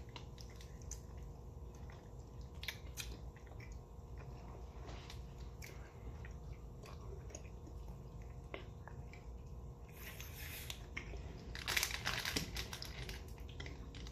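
People chewing sour rainbow gummy ribbons, faint and soft, with scattered small clicks and two louder bursts of noise about ten and twelve seconds in.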